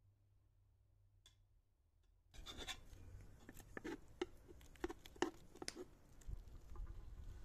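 Near silence at first, then from about two and a half seconds in a metal spoon scraping and scooping cooked rice in a steel pot: irregular scrapes and light clicks against the pot.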